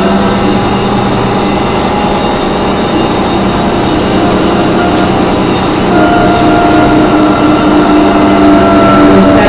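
Cabin noise inside a New Flyer D40LF transit bus under way: Cummins ISM diesel and road noise, with a high screeching whine of several held tones that fades about a second in and returns about six seconds in. The uploader puts the screech down to the brakes or the transmission.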